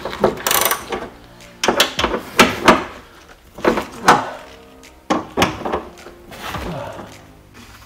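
Irregular sharp clicks and knocks of a hand tool on a 10 mm nut of a car's window regulator inside the door, with faint background music.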